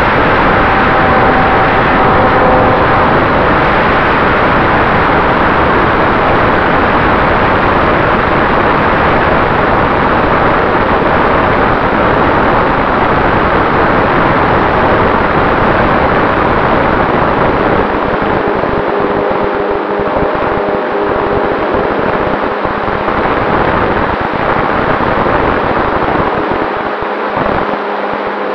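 Onboard sound of a radio-controlled Cessna 188 model in flight: a loud, steady rush of propeller and wind noise with a faint steady motor tone. The low rumble thins out about two-thirds of the way through.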